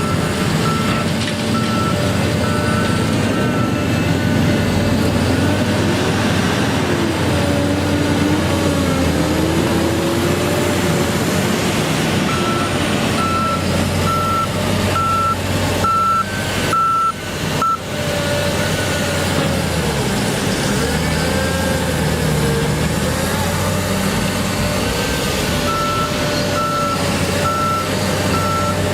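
Heavy construction machine's engine running under load, its pitch rising and falling, with a backup alarm beeping about once a second in three separate runs as the machine reverses.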